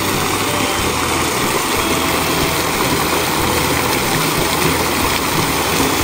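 Steady rushing and splashing of a geyser-fed fountain jet of hot mineral water, with a low rumble underneath.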